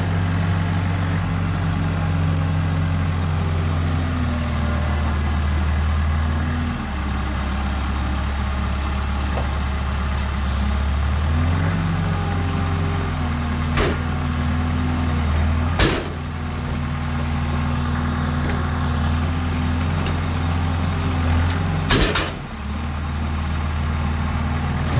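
A large engine running at a steady idle, dropping in speed about seven seconds in and rising again a few seconds later. A few sharp knocks come over it in the second half, two of them loud.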